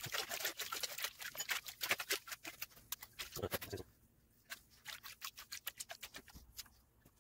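Plastic gold pan being shaken and dipped in a tub of muddy water, with rapid sloshing, splashing and the clicking of gravel and sand in the pan. The sounds come thick and fast for about four seconds, then sparser.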